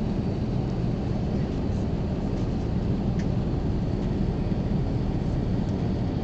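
Steady cabin roar of an Airbus A350-1000 climbing after takeoff, heard from inside the passenger cabin: engine and airflow noise, deep and even, with a few faint ticks.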